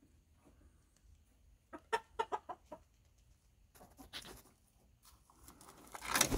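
Chickens clucking: a quick run of short clucks about two seconds in, a few more around four seconds, and louder clucking near the end.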